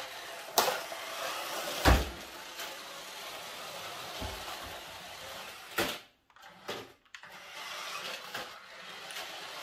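Toy radio-control car's small electric drive motor whirring as it drives over a wooden floor, with three sharp knocks, the loudest about two seconds in. The sound drops away briefly twice a little after the middle.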